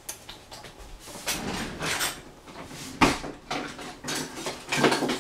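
Kitchen handling noises: irregular rustling and knocking, with one sharp knock about three seconds in and another cluster of knocks near the end.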